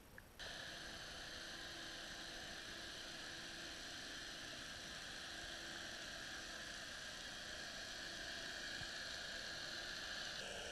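Steady underwater hiss with a faint hum in the recording, starting abruptly about half a second in and running evenly, with no bubbles or other distinct events.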